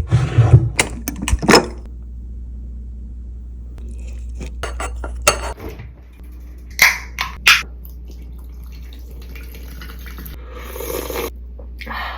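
Dishes and food containers clinking and knocking as things are handled. A burst of clatter comes in the first two seconds, a few sharp knocks follow in the middle, and a short rustle comes near the end.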